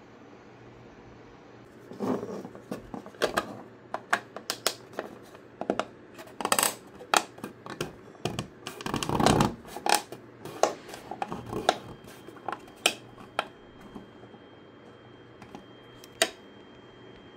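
Hard plastic clicking, tapping and scraping as a 3D-printed top panel is fitted and pressed onto a printed speaker case. The handling is irregular, starts about two seconds in and thins out after about thirteen seconds, with one more click near the end.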